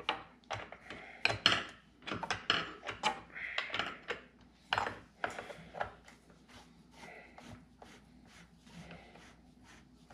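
Small metal clicks and scrapes from putting the bar nuts onto a Husqvarna chainsaw's side cover. It is busy for about the first six seconds and turns to fainter, sparser clicks after that.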